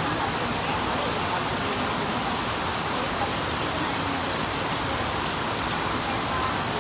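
Steady rain falling, an even, continuous hiss of drops on surfaces.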